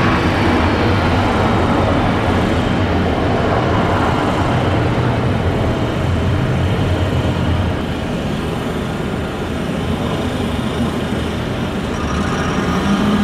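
Jet engines of a twin-engine airliner running as it rolls along the runway: a steady roar with a strong low hum that eases slightly about two-thirds of the way through.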